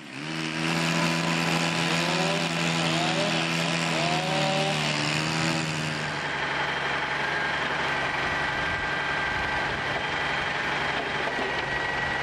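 A gas-powered pole saw's small engine running steadily, then from about six seconds in a work truck's engine running, with a faint steady high whine over it.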